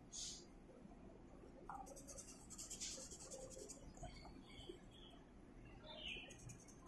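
Faint scratching of a light blue coloured pencil shading on paper, in a few short bursts of strokes.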